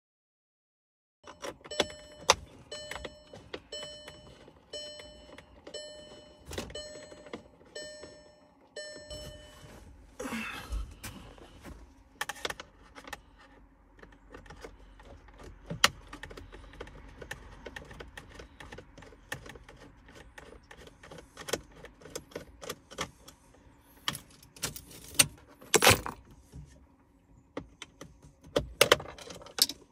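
The VW Tiguan's warning chime pulses nearly twice a second for about eight seconds, then stops. After it come keys jangling in the ignition and the clicks and knocks of a Torx driver and plastic trim panels being worked loose around the steering column.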